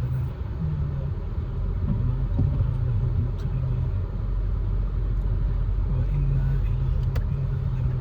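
A car's engine and road rumble heard from inside the cabin as the car moves off slowly: a steady low rumble with a hum that comes and goes, and a couple of light clicks.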